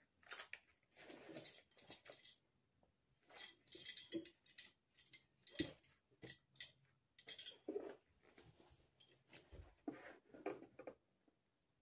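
Faint, irregular handling sounds of a leather key case and a canvas belt bag being turned over: light clinks of metal hardware and rustling, in short scattered bursts.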